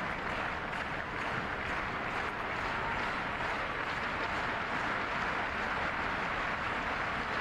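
Arena crowd cheering and clapping as one steady, even noise, with no single claps or shouts standing out.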